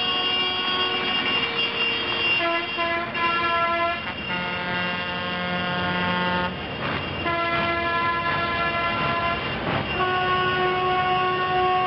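Tractor horns sounding a series of long, held notes that change pitch several times, over the running engines of passing tractors.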